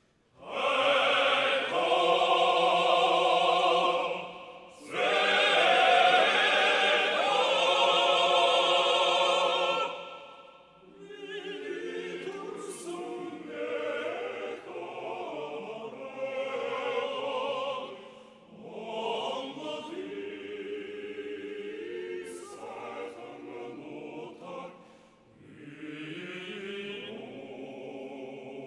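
Male military choir singing: loud and full for the first ten seconds with a brief break about four seconds in, then a softer passage sung in separate phrases.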